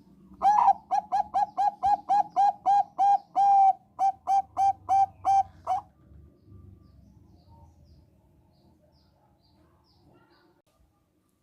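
Zebra dove of the Thai 'Bangkok' song strain singing a run of about sixteen short, clipped coos, roughly three a second, over some five seconds. It then falls silent.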